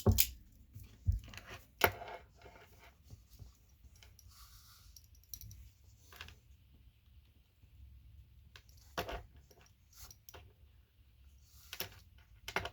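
Handling noise from a laced leather sheath and a metal multitool: scattered clicks and knocks with light metallic clinks. The louder knocks come near the start and again about three quarters of the way in.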